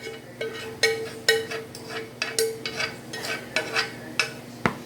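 A utensil stirring and scraping against a dish, with repeated short strokes about two to three a second that each ring briefly, and a sharper clack near the end.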